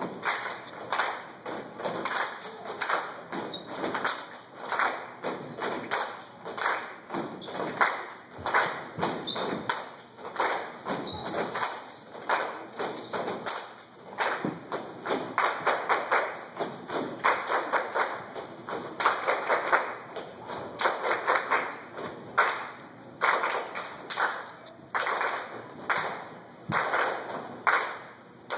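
Step team's body percussion: feet stomping on the stage floor and hand claps in tight unison rhythms, with short breaks between phrases.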